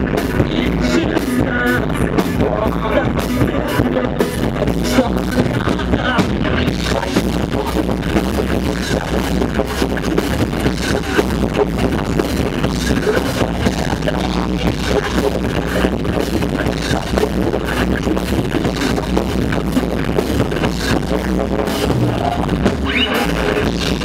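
Loud live metalcore band playing, with steady pounding drums, guitars and the singer's vocals into a microphone.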